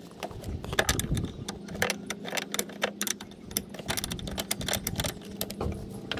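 Quick, irregular metallic clicks and clinks of a tubing wrench being fitted and turned on the brake line nuts of a brake master cylinder, over a steady low hum.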